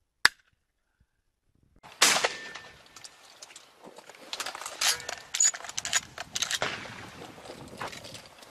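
Shotgun shots: a short, sharp crack just after the start and a loud shot about two seconds in that dies away. Then several seconds of crackling and rustling in dry grass.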